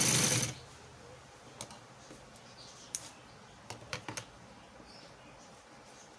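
Sewing machine stitching briefly and stopping about half a second in, followed by a few light, scattered clicks as the fabric is handled and repositioned at the machine.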